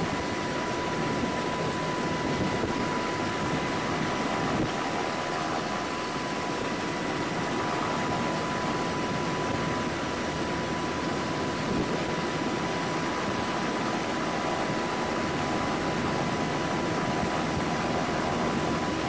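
Steady helicopter noise heard from inside the cabin by the open door during a rescue hoist, an even rushing sound with a thin constant tone running through it.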